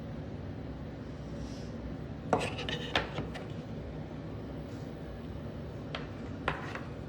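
Light clicks and clatter of small hard objects being handled: a quick cluster about two seconds in, then two single clicks near the end, over a steady background hiss.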